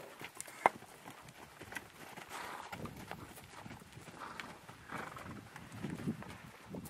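Wild mustangs walking past on dry, stony desert ground: scattered, uneven hoof clops. A single sharp click about half a second in is the loudest sound.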